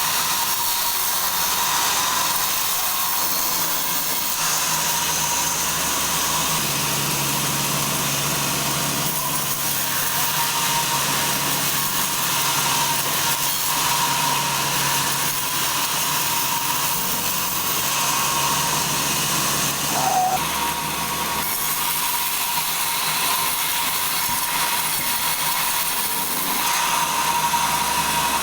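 Sawmill saw cutting through a log: a steady mechanical noise with a constant high whine over a low hum, with a short squeak about twenty seconds in.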